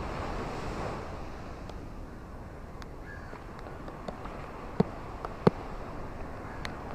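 Ocean surf washing steadily, a little louder in the first second or so and then easing off. Scattered sharp clicks sound over it, the two loudest about five seconds in.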